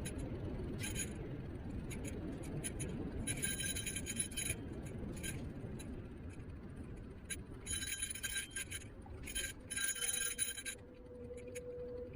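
Niu KQi3 Pro electric scooter riding along: a steady low rumble of wheels on the road, broken by several short bursts of metallic clinking and rattling. Near the end the rumble drops and a steady hum sets in.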